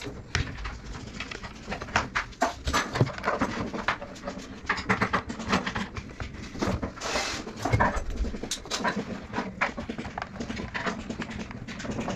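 Irregular small clicks, taps and knocks as the plastic housing of a Hilti TE 7-C rotary hammer is handled and worked on with a screwdriver.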